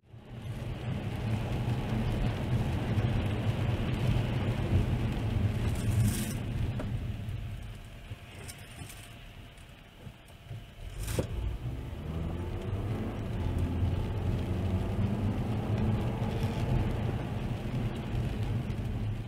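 Car driving on a wet road, heard from inside the cabin: a steady low engine and road rumble with tyre hiss. It drops quieter for a few seconds in the middle, and a single sharp click comes about eleven seconds in.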